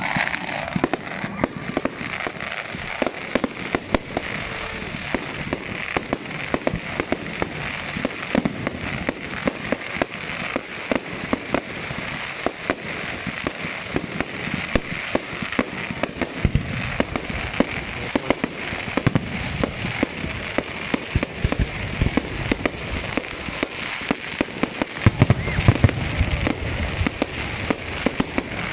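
Fireworks display: a dense, continuous run of sharp crackles and pops over a steady hiss, with a cluster of louder, deeper bangs near the end.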